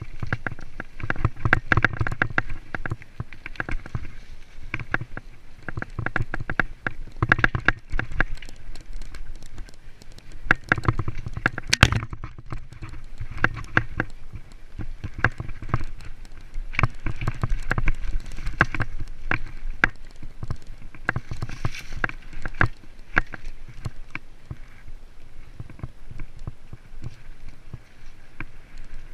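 Mountain bike riding fast down forest singletrack, heard from a camera mounted on the rider or bike: tyres rolling over dirt and dry leaves, with frequent irregular knocks and rattles as the bike jolts over roots and bumps, over a steady rumble of wind and motion.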